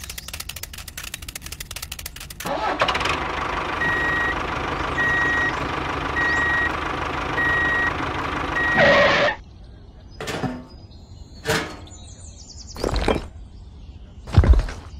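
Rapid clicking, then a vehicle engine sound running with a reversing beeper that beeps about once a second. It stops suddenly, and a few separate knocks follow as miniature clay bricks are dropped into a plastic toy trailer.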